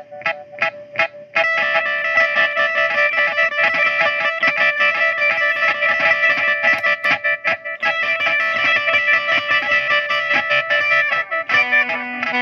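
Fender Jazzmaster electric guitar played through a chain of effects pedals (delay, pitch and modulation, distortion) into a Fender Vibrolux amp. A stuttering note pulses about four times a second, then about a second in swells suddenly into a dense, sustained chord wash with rapid fluttering repeats. Near the end a low held note comes in.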